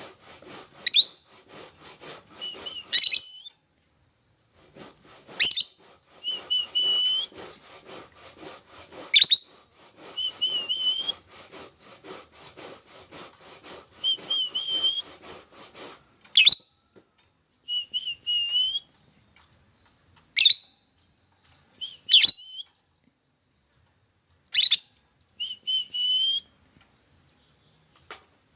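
Lovebird calling: sharp, shrill chirps every couple of seconds and short whistled notes, over a dry rasping chatter that stops about halfway through.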